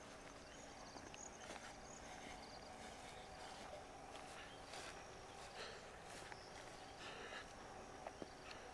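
Faint outdoor ambience: soft, scattered clicks and rustles, with a few faint high chirps near the start.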